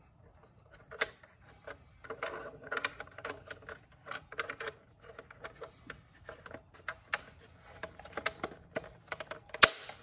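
Hard plastic overhead console being handled: a stream of small clicks, taps and rattles, with one sharper click near the end.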